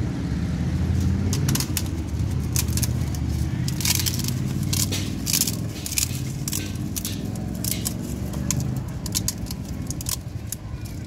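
Engine running as a low hum, strongest in the first few seconds and then fading, with many sharp crackles and crinkles throughout from plastic bags and crisp food being handled.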